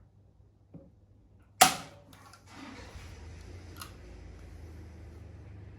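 A hand rivet gun setting a blind rivet in thin aluminium: one loud sharp crack as the mandrel snaps, about a second and a half in, after a small knock and followed by a few light clicks. A low steady hum sets in about halfway through.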